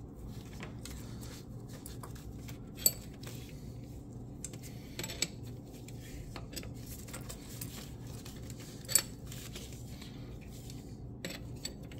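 Steel hand wrenches clinking against a fuel-injector puller tool as its 17 mm pieces and brass bolts are turned onto the injectors. Scattered small clicks, with two sharp metallic clinks about three seconds in and about nine seconds in, over a steady low hum.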